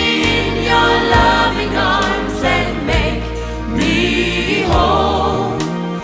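Christian worship song: voices singing together over instrumental backing with sustained low bass notes.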